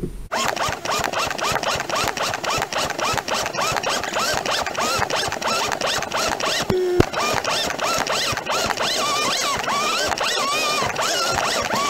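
Fast-forwarded sound from inside a pickup truck's cab, run at many times normal speed: a dense, rapid chatter of ticks with short warbling chirps. It starts abruptly just after the start and holds evenly throughout.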